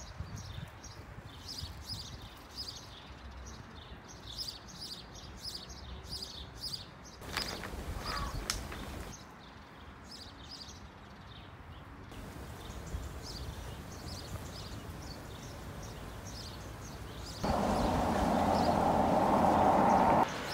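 Small birds chirping repeatedly over a low, rumbling outdoor background. In the last few seconds a louder, steady noise takes over.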